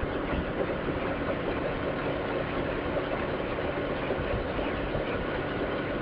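Suzuki GS500E motorcycle's parallel-twin engine running steadily while cruising on the open road, mixed with a constant rush of wind noise.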